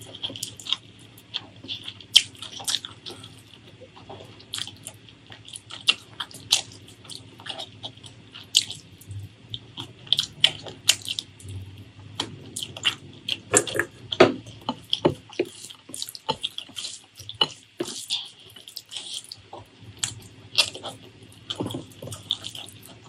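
Close-miked eating by hand: wet chewing, lip smacks and mouth clicks on spicy beef curry and rice, with fingers squelching through the saucy food, in a quick string of sharp wet clicks.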